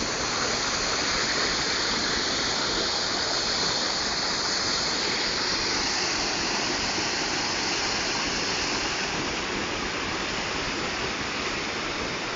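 Creek water pouring over a small dam, a steady, even, pretty loud rush of falling water.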